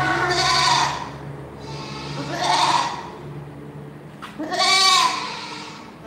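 A goat bleating three times, each call lasting about a second, the third the loudest.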